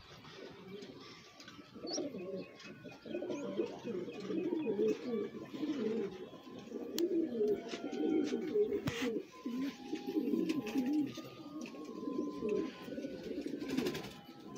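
Several domestic pigeons cooing, many low burbling coos overlapping, louder from about two seconds in. A few faint high chirps, and a sharp click about nine seconds in.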